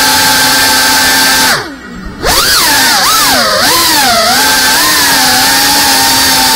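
FPV drone's brushless motors and propellers whining steadily. About a second and a half in, the whine drops sharply in pitch and level for about half a second, then surges back and swoops up and down in pitch for a few seconds as the throttle changes, before settling steady again.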